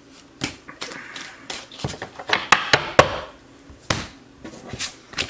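Deck of oracle cards being shuffled and handled: a string of sharp taps and clicks, with a papery flutter of cards around the middle.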